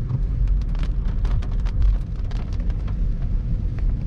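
Wind buffeting the microphone of a moving car, making a loud, steady low rumble, with many small sharp ticks of rain striking the car.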